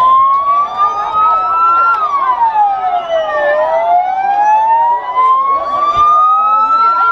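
Two police vehicle sirens wailing, each in a slow rise and fall, overlapping out of step with each other. These are most likely the sirens of Guardia Civil patrol 4x4s.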